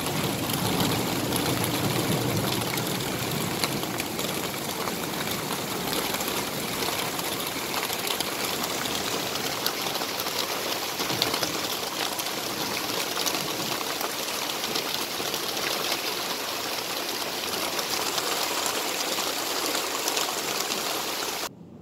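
Torrential rain pouring down, a steady dense hiss with many close drop impacts, heard from under a pergola. The sound cuts off abruptly just before the end.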